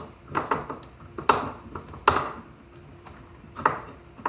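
A run of sharp metallic clinks and knocks, about six, irregularly spaced and some ringing briefly, from a screwdriver and screws working against the metal mounting hardware as the typewriter block is screwed back into place.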